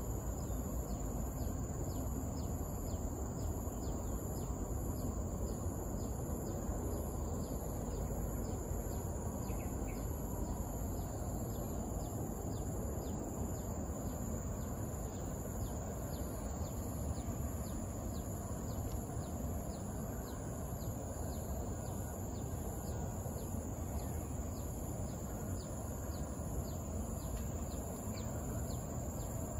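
Steady, high-pitched chorus of insects, one part pulsing evenly, over a continuous low outdoor rumble, with faint short ticks scattered through it.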